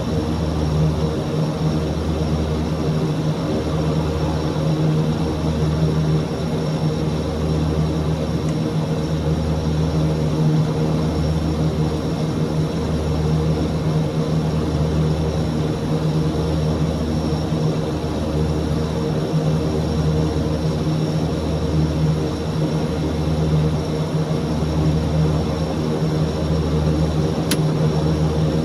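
Antonov An-26's twin Ivchenko AI-24 turboprop engines and propellers running steadily, heard from inside the aircraft. The low drone swells and fades about once a second, the beat of two propellers turning at slightly different speeds. A brief click sounds near the end.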